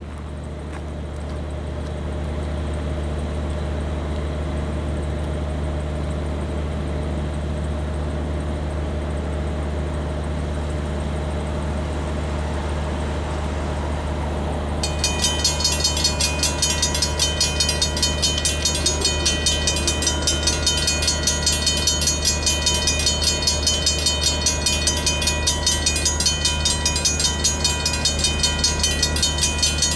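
Low, steady hum of a diesel locomotive engine. About halfway through, the crossing's Griswold mechanical bell starts ringing in rapid, even strokes as the signals activate for an approaching train.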